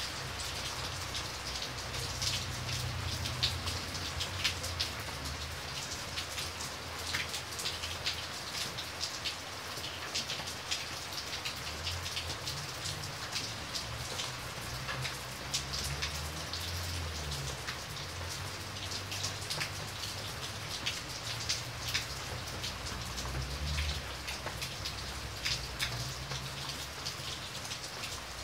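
Heavy rain falling: a steady hiss with many sharp individual drop splashes close by. An uneven low rumble comes and goes underneath.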